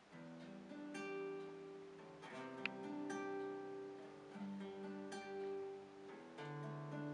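Two acoustic guitars playing chords together, the chord changing about every second. There is a brief sharp click about two and a half seconds in.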